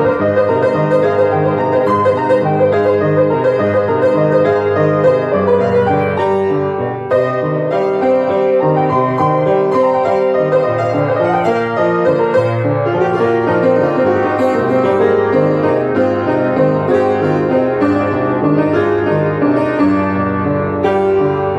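Beckwith home organ being played: held chords over a bass line that steps along in a steady rhythm.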